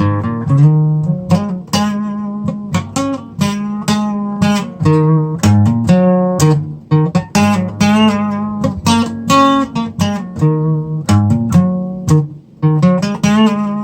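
Acoustic guitar strummed and picked in a steady rhythm, an instrumental break between sung verses of a song.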